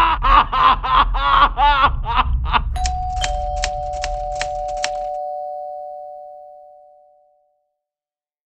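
A man's desperate screaming cries for help that break off about two and a half seconds in. They are followed by a run of sharp typewriter key clicks, about five a second, over two ringing bell-like tones that fade out over several seconds.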